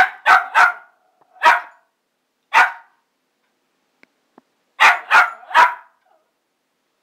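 Small shaggy terrier barking: eight sharp barks, a quick run of three at the start, two single barks, then another quick run of three about five seconds in.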